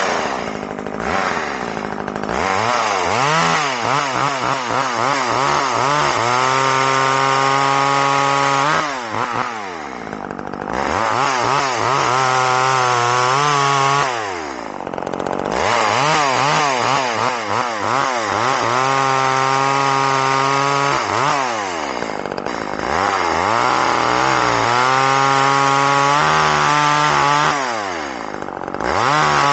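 Poulan Micro XXV small two-stroke chainsaw making test cuts in dry, rock-hard locust: the engine revs up and holds high with a wavering pitch under the cut, then drops back toward idle about four times.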